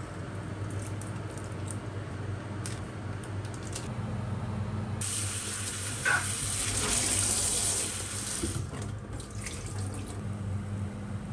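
A low steady hum with a few faint clicks. About halfway through, a kitchen tap suddenly starts running hard into a stainless-steel sink while a plastic container of sliced food is rinsed under it. The water then eases into lighter splashing as the container is tipped and the rinse water is poured out into the sink.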